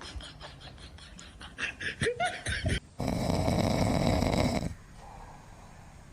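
A pet snoring, loud and rasping for a couple of seconds, then quieter. Before it, about three seconds in, come a run of quick clicks and a short rising squeal.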